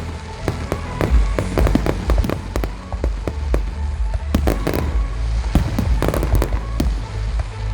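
Fireworks display: a rapid, dense run of shell bursts and crackling reports, many overlapping, over a constant deep low rumble.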